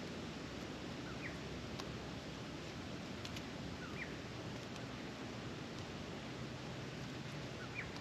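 Steady wind noise with a faint bird chirping three times, each call a pair of short rising notes, and a few faint ticks.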